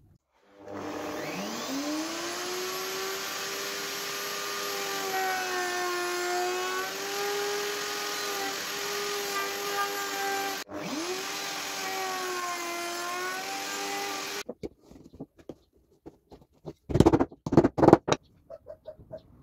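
Router in a router table spinning up with a rising whine, then running while a slot-cutting bit cuts a groove along the edge of a pine board, its pitch dipping slightly under load. About halfway it cuts off, spins up again for a second pass and stops abruptly. Near the end come several knocks of wooden boards handled on the bench.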